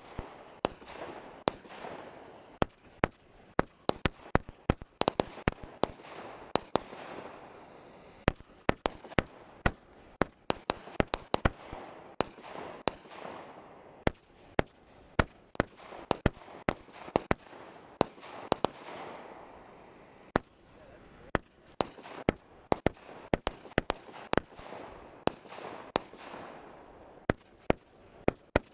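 A 49-shot 500 gram consumer fireworks cake firing, with a rapid, irregular string of sharp reports from shell launches and breaks, often several a second, over a steady noisy wash.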